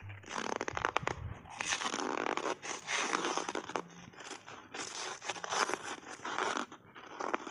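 Button-shaped ice coated in matcha powder being bitten and chewed in big bites, a dense run of crunching and crackling with many sharp cracks, in clusters that come and go.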